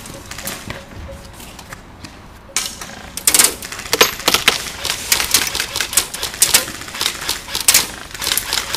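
Airsoft rifles firing in short rapid bursts of sharp clicks, a few at first and then many in quick succession from about three seconds in.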